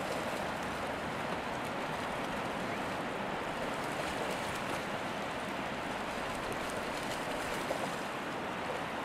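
Steady rush of shallow sea surf, with a dog splashing as it runs through the water.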